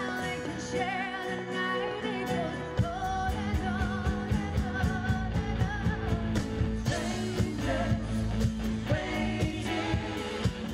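Live rock-pop band playing: a woman sings lead over acoustic and electric guitars and keyboard. About three seconds in, the bass and drums come in with a steady beat.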